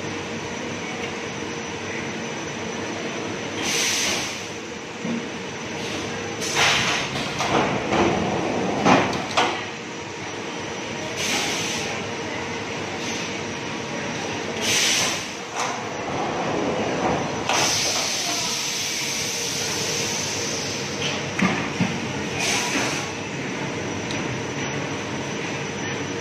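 A 50 kW slide-way high-frequency plastic welding machine in operation: a steady machine hum with a short hiss every few seconds and one longer hiss of a few seconds past the middle. Knocks and rumbles come with the sliding trays moving, loudest between about six and ten seconds in.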